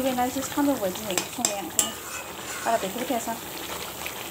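A metal ladle stirring a thick curry in a hot metal wok, with sizzling and several sharp clinks and scrapes of the ladle against the pan, most of them about a second to two seconds in.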